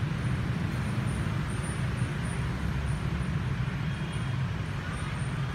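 Steady low background rumble with a hiss above it, unchanging throughout and with no distinct events.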